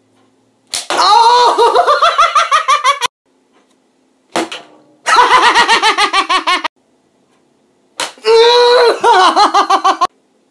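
A man laughing hard and high-pitched in three loud bouts of rapid, repeated ha-ha pulses, with short silences between them.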